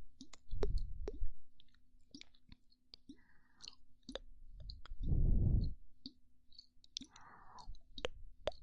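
Close-miked ASMR mouth sounds: many sharp wet tongue and lip clicks, with soft breaths blown into the microphone, the loudest about five seconds in.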